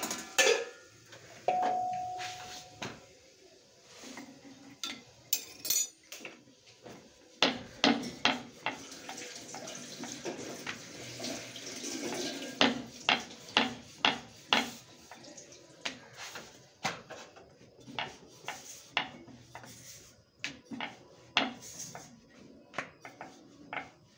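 Kitchen utensils clinking and knocking: steel pots and a rolling pin against a wooden rolling board, in sharp knocks about one or two a second, with a brief ringing note near the start.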